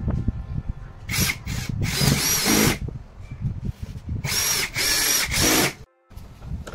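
Power drill run in several short spurts, the longest under a second, its motor whine bending up and down in pitch.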